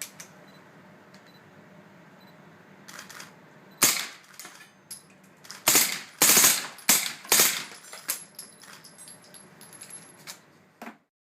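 Gunshots on a firing range: one loud shot about four seconds in, then a run of loud shots close together around six to seven and a half seconds, followed by several quieter cracks before the sound cuts off.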